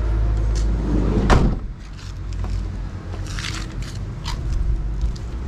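A van's side door slid shut and latching with a loud thud about a second in, followed by a few light clicks.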